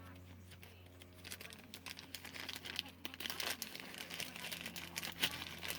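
Crinkly wrapping being handled and pulled off by hand, in quick irregular rustles and crackles that start about a second in.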